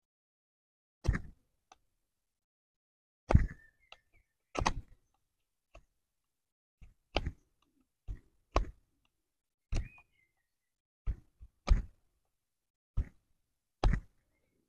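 BPS Bushmate bushcraft knife making fine cuts into the edge of a split wooden board: a dozen or so short, sharp cracks as the blade bites through the wood fibres, about one a second with silence between.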